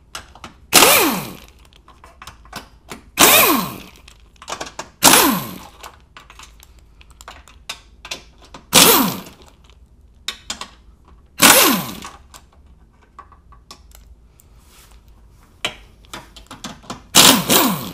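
A cordless impact wrench undoing the 13 mm nuts on an aluminum bumper beam. It fires in six short bursts of hammering, each ending in a falling whine as the motor spins down, with light clicks of the socket and nuts in between.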